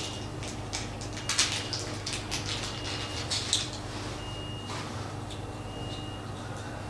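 Light clicks and rattles of the laser's small metal power key being handled, mostly in the first few seconds, over a steady low hum. A faint short high beep recurs every second or two.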